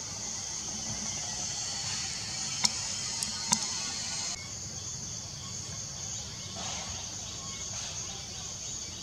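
Steady high-pitched drone of insects in the forest, with three short sharp clicks about three seconds in.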